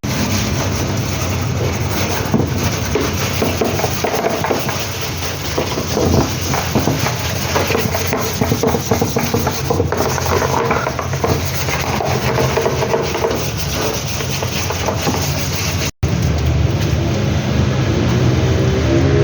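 LG washing machine running during a function test after servicing, with a dense churning and rubbing noise. After a brief break about sixteen seconds in, a steadier motor hum comes in.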